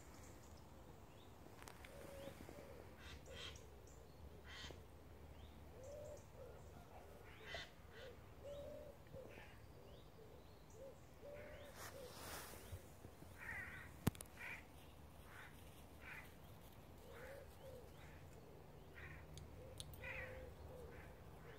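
Jays calling: a scatter of short, harsh, rasping screeches, a few at a time, with softer low notes in between. A single sharp click about two-thirds of the way through.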